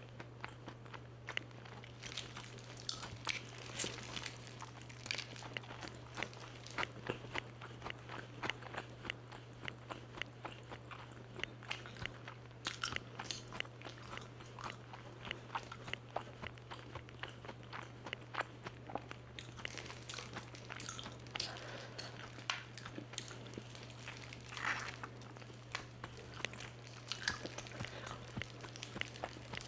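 Close-up crunching of crispy-coated fried chicken being bitten and chewed, a dense run of sharp, irregular crackles with a few louder crunchy bites.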